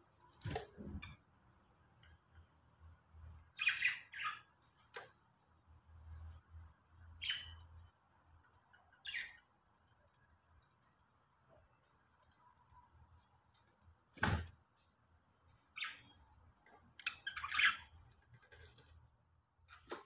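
Budgerigars giving short, scattered chirps and squawks, with a busier run of calls near the end. A single sharp knock comes about two-thirds of the way through.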